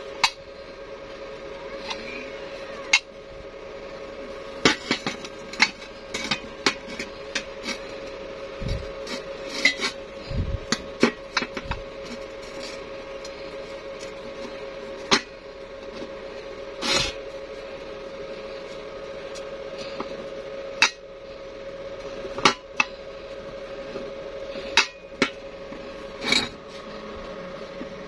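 Steel tubes joined by a welded barrel hinge clinking and knocking against each other and the floor as the hinge is swung open and shut: scattered sharp metallic clanks, with a steady hum underneath.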